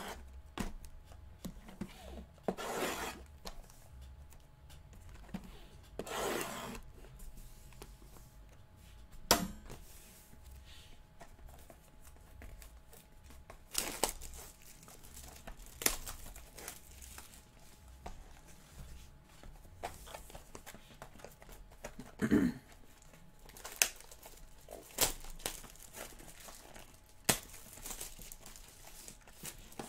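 Sealed Bowman Chrome trading-card boxes being opened by hand: cellophane shrink wrap torn and crinkled, with scattered clicks and rustles of the cardboard being handled.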